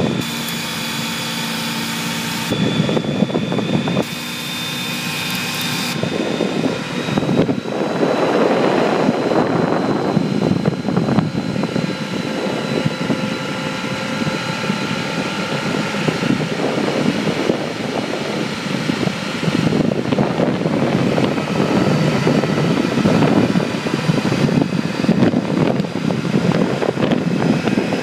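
A road vehicle in motion: a steady engine hum under loud wind rush that buffets and swells in loudness.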